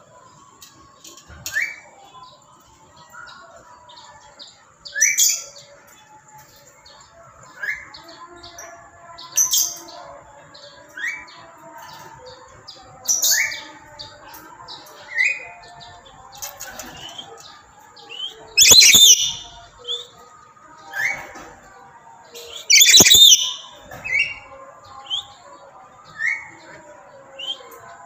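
Black-capped lory calling: short rising notes every second or two, broken by loud harsh screeches. The two loudest screeches come in the second half.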